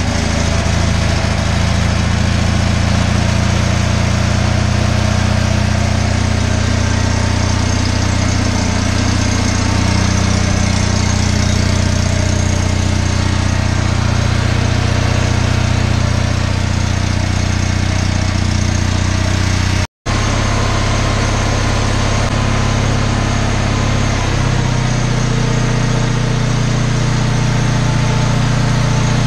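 Engine of a salvaged RV generator running steadily just after a cold start, with its choke still on. The sound cuts out for an instant about 20 s in, and the low engine note shifts about 24 s in.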